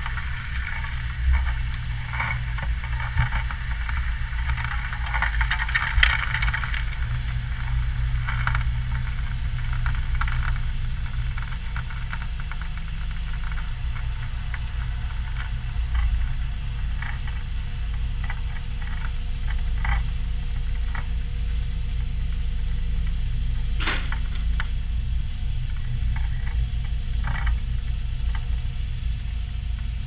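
Concrete pump truck running: a steady low engine rumble, with scattered rattles and knocks and one sharp knock about two-thirds of the way through.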